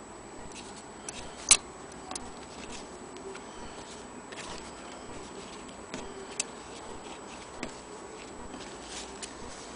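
Scattered light clicks and taps from hands handling a vintage Willcox & Gibbs sewing machine and a piece of cloth, at irregular intervals with no steady rhythm. The sharpest click comes about one and a half seconds in.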